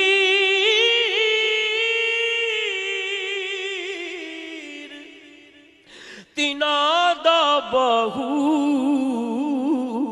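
A solo male voice singing a Punjabi devotional kalam. A long held note with vibrato fades away over the first five seconds or so; about six seconds in, a new phrase begins with quick ornamented turns and settles into another held note.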